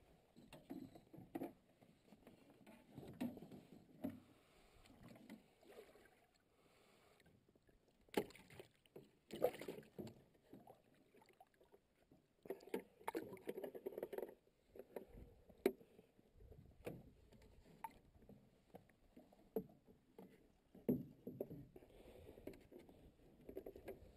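Irregular knocks, clicks and rustles in a canoe as fishing gear and a plastic box are handled, with the odd bump against the hull.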